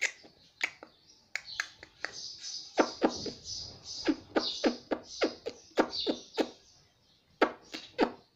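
Indian ringneck parakeet making a quick, irregular run of sharp clicks and smacking pops with its beak and tongue, mixed with soft hissy chatter.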